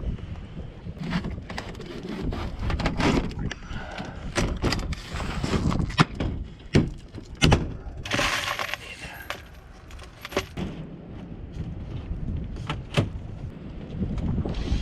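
Irregular sharp knocks and clatters, a dozen or more, over a low rumble.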